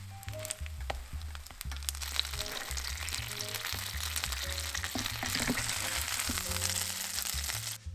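Oil sizzling and crackling in a frying pan around a folded tortilla wrap, growing louder about two seconds in and cutting off sharply near the end.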